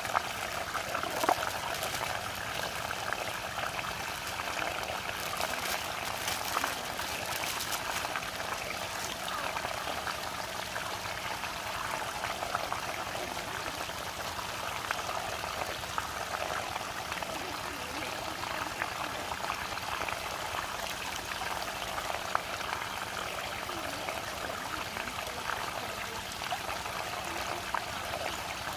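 Water rushing and swirling steadily down a whirlpool vortex, with sharp crackles of plastic packaging in the first several seconds.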